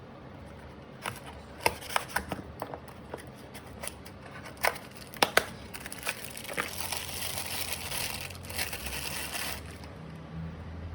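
Handling noise: a series of sharp clicks and taps, then a few seconds of crinkling rustle.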